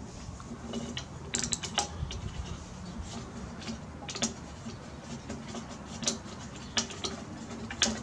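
Scattered light metallic clicks and taps of hand tools working on a Briggs & Stratton lawnmower engine, at irregular intervals.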